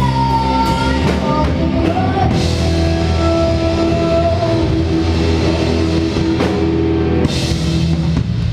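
Live rock band playing: electric guitars holding long sustained notes over bass and a drum kit, with two cymbal crashes, about two seconds in and again near the end.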